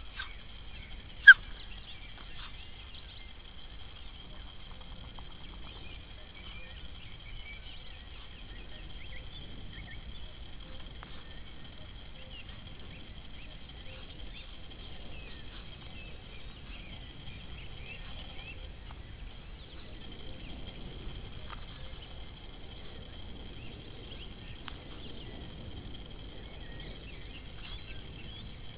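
Faint chirps of distant forest birds over a low wind rumble and a steady high whine, with one sharp click about a second in.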